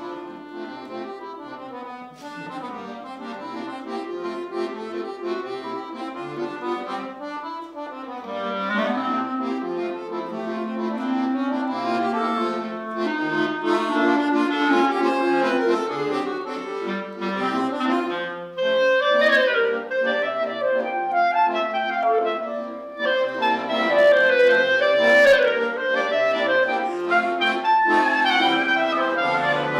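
Clarinet and accordion duo playing live. The accordion starts alone, playing chords, and the clarinet comes in with the melody, the music growing louder about eight seconds in.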